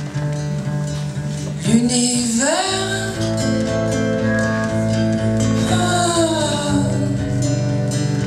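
A man singing in French to a strummed acoustic guitar, drawing out the word "l'univers" as one long held note that falls away a little after halfway.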